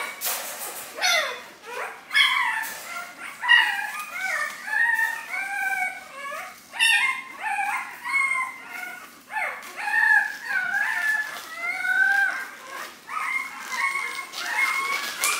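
A litter of 8-day-old Rottweiler puppies crying and squealing, many high-pitched calls overlapping without a break. They are hungry and waiting to be fed.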